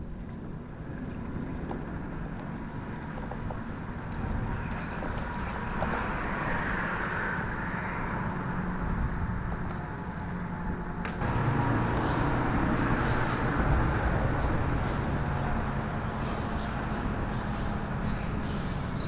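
Steady low engine rumble under a background of outdoor noise, getting louder about eleven seconds in.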